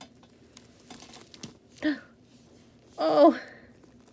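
Faint rustling and small clicks of hands working a tulle pet skirt onto a bearded dragon. A short voice sound comes at about two seconds, and a woman's louder surprised "Oh" near the end.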